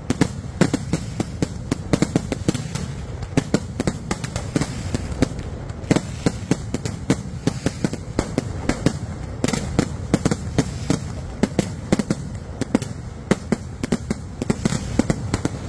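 Kerala vedikkettu temple-festival fireworks: a dense, unbroken run of sharp firecracker bangs, several a second, over a steady low rumble.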